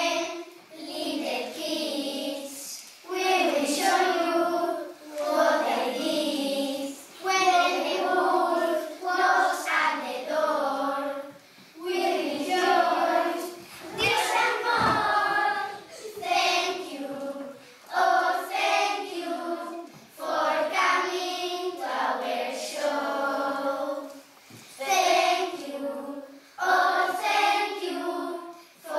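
A group of young children singing together, in short phrases with brief breaks between them.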